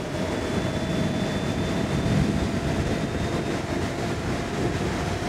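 Wind rushing over the microphone and tyre noise from a 72-volt Stealth Bomber electric bike accelerating at about 55 to 60 mph. A faint steady whine from its hub motor creeps slightly up in pitch.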